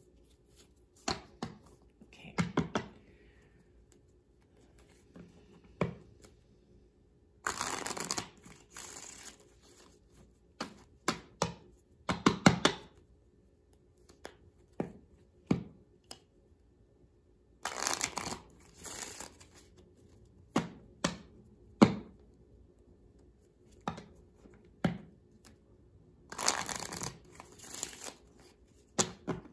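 A deck of playing cards being shuffled by hand, in three longer bursts of card-on-card rustling a second or so each, with short sharp clicks and taps of the cards between them.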